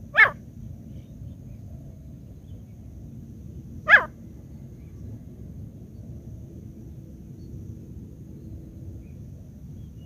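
Partridge (teetar) giving two short, loud single calls about four seconds apart, the caged decoy calling to draw wild partridges in.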